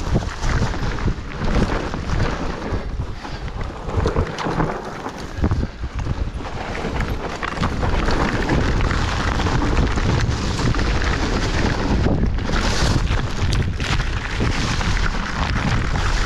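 Mountain bike riding down a dirt singletrack strewn with dry leaves: wind buffeting the action camera's microphone as a continuous low rumble, with tyre noise and frequent clicks and rattles from the bike over bumps.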